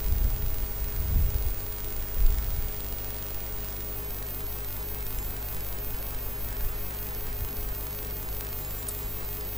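Steady hum and hiss of a church microphone and sound system left open. A few dull low bumps in the first couple of seconds, the loudest about two seconds in, come from the live headset microphone being brushed.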